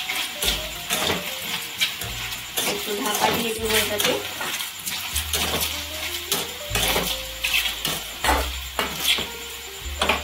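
Metal spatula scraping and clinking against a steel kadai while sliced mushrooms are stirred, in repeated strokes about twice a second.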